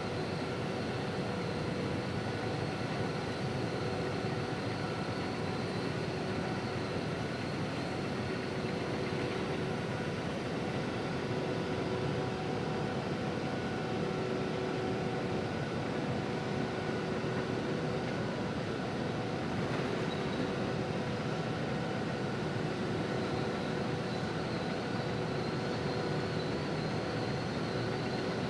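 Steady machinery hum: an even rumbling noise with several held tones laid over it, unchanging throughout.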